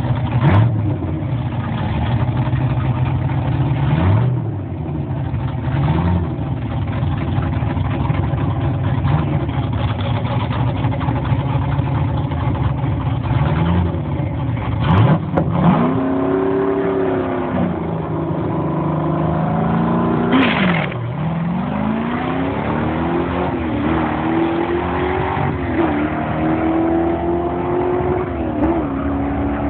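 1969 AMC Javelin drag car's engine idling and blipping its revs a few times at the start line, then launching with a sharp surge about halfway through. It pulls away down the strip, the revs climbing and dropping several times as it shifts gears.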